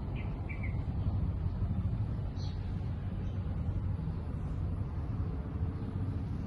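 Car engine idling, a steady low rumble, with a few faint high chirps from birds.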